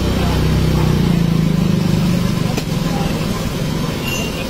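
Roadside traffic noise: a steady low engine hum, with one short click partway through and a brief high tone near the end.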